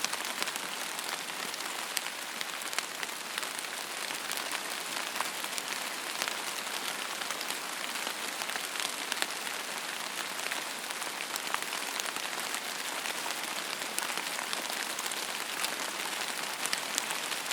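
Steady rain falling, an even hiss with many individual drops ticking sharply through it.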